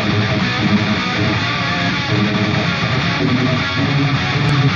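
Music led by guitar, steady throughout.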